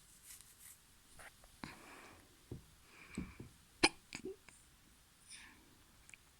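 A person hiccuping: a few short, sharp hiccups at uneven intervals, the sharpest a little under four seconds in.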